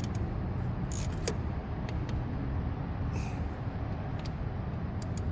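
Steady low rumble with a few light clicks and short scrapes, typical of small parts and tools being handled.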